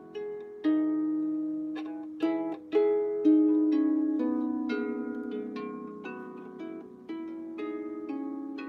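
Out-of-tune harp played slowly: single strings and small groups plucked a few at a time, each note ringing on and fading under the next.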